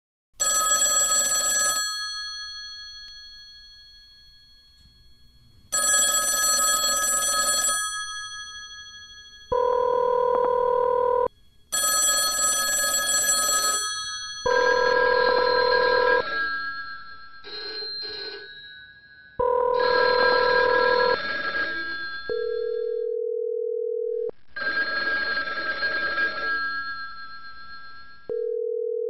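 Several modified 1960s telephones ringing in turn and often overlapping, each with its own ring: bright bell-like rings that fade away, and buzzier or steady electronic ring tones, in bursts of one to three seconds.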